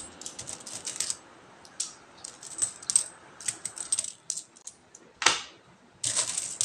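Peso coins clinking as they are picked through and shifted by hand on a pile, in scattered runs of sharp metallic clicks. There is one louder clatter a little past five seconds in, then a dense run of clinks near the end as the hands sweep through the coins.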